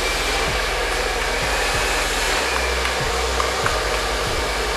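Handheld hair dryer running steadily, blowing air onto wet hair.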